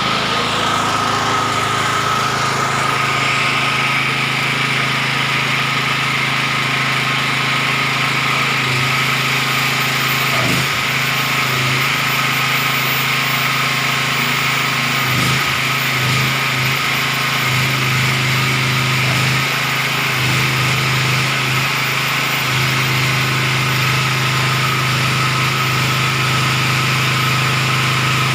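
A 7000 W (9.5 kVA) portable generator's engine running steadily.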